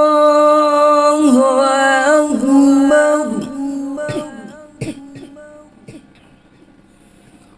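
A single voice chanting a long held note that bends in pitch about a second in and again near two seconds, then trails off after about three seconds; a few soft clicks follow as it goes quiet.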